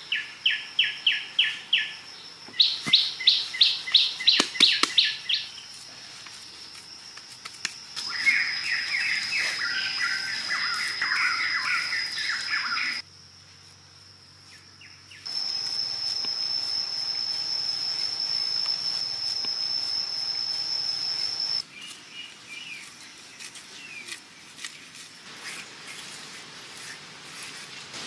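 Forest ambience: birds chirping in quick runs of repeated notes and warbling, over a steady high-pitched insect drone. The sound changes abruptly several times, with a quieter stretch about halfway through.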